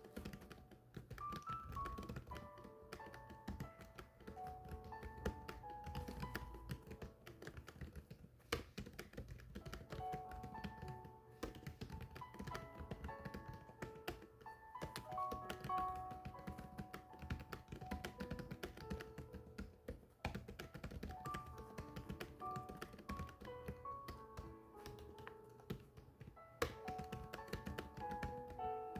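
Keys tapped in a steady stream of typing, under a gentle instrumental melody of short notes.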